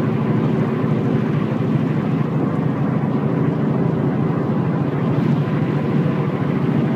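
Subaru Impreza hatchback at highway speed, heard from inside the cabin: steady road and tyre noise with a low whirring hum. The whirring sounds more like a tire than a bearing, and it is not excessively noisy.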